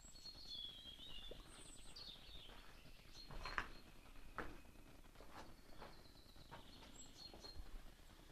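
Faint bird chirps, short high calls in a quiet background, with a handful of soft knocks and crunches scattered through, the loudest about three and a half seconds in.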